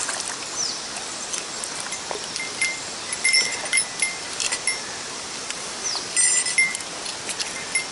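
A mountain stream's water running steadily, with a few short high chirps over it in the middle and again about six seconds in.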